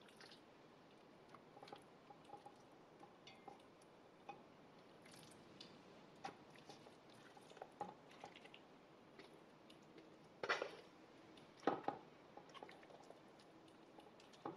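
Raw chicken pieces being pressed and arranged by hand in a stainless steel pressure-cooker pot: faint wet squishing, with two louder thuds about a second apart a little after ten seconds in.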